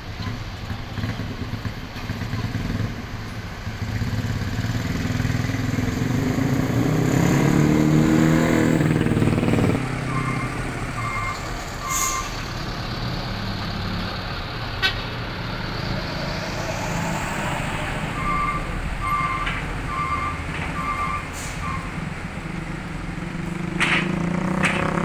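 Diesel dump truck engines: one builds up loud and close over the first ten seconds, then drops away suddenly, and another comes up near the end. In between, two runs of short, evenly spaced electronic beeps sound.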